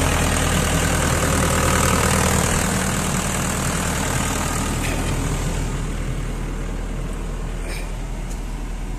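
SANY excavator's four-cylinder Isuzu diesel engine running steadily at idle, heard close at the open engine bay, with a loud rushing hiss over it that fades about five seconds in as the engine becomes more distant.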